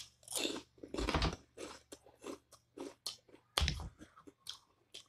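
A person chewing crunchy food close to the microphone in a run of irregular crunches. The two heaviest crunches come about a second in and a little past the middle.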